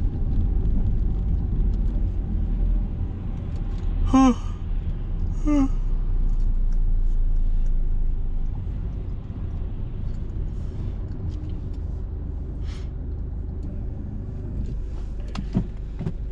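Car interior noise while driving on a wet road: a steady low rumble of engine and tyres, louder for the first half and dropping off about eight seconds in. Two short voice sounds come about four and five and a half seconds in.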